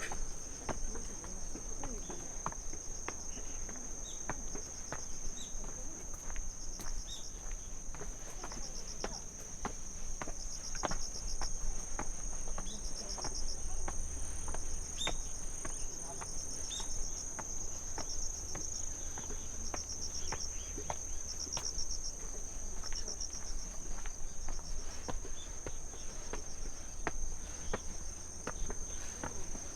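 Insects trilling steadily in a high, continuous chorus, with another insect chirping in short pulsed bursts about once a second. Footsteps on the trail, about two steps a second.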